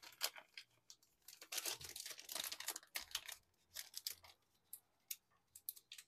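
A photocard package being opened by hand: faint crinkling, tearing and rustling of the packaging with scattered small clicks, busier in the first few seconds and thinning out toward the end.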